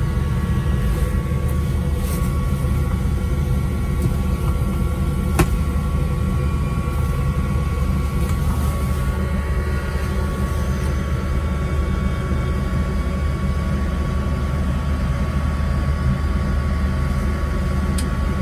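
Steady machinery drone of a deicing truck, heard from inside its enclosed operator's cab while it sprays fluid: a low rumble with a steady high whine over it. There is a sharp click about five seconds in and another near the end.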